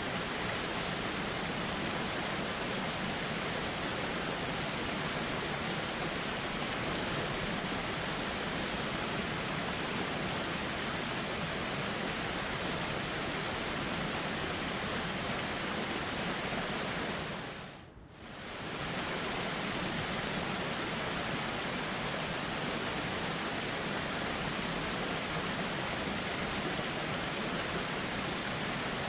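Steady rushing of a flowing river, an even hiss of moving water. About eighteen seconds in it fades out briefly and comes straight back.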